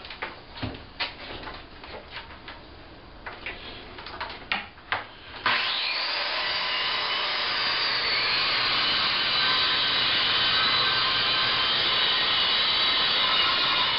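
After a few light knocks, a corded circular saw starts suddenly about five and a half seconds in. It runs steadily with a high whine while crosscutting a sheet of 3/4-inch plywood.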